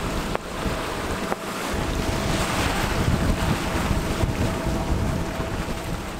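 Headwind buffeting the microphone on a sailboat's deck, gusting unevenly, with water rushing past the hull.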